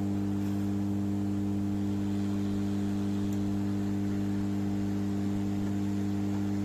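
Steady electrical hum, a low buzz with a stack of even overtones that holds unchanged throughout.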